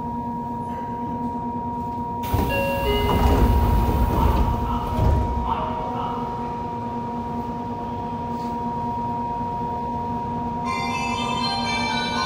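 Yokohama Municipal Subway 3000A train heard at a standstill: a steady electrical hum with constant tones. About two seconds in it is broken by a few seconds of louder rumbling and clatter with a short chime stepping down in pitch, and near the end a set of high steady tones sets in.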